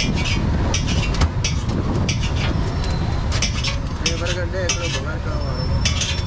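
A steel knife repeatedly clinking and scraping against a large flat griddle as burgers are cut on it, in short irregular strokes, over a steady low rumble and faint background voices.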